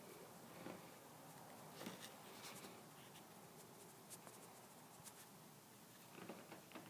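Near silence: room tone with a few faint, scattered ticks and rustles.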